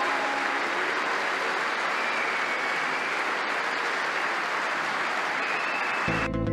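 Audience applauding steadily. Near the end the applause cuts off abruptly and music begins.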